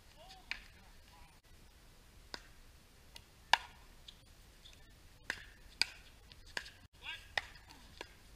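Pickleball paddles striking the hard plastic ball back and forth in a doubles rally: a series of sharp pops at irregular intervals, the loudest about three and a half seconds in. Faint players' voices underneath.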